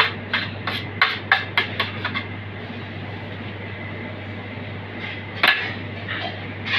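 A metal fork tapping quickly against a container, about eight light clicks in two seconds, with one more single click about five and a half seconds in, over a steady low hum.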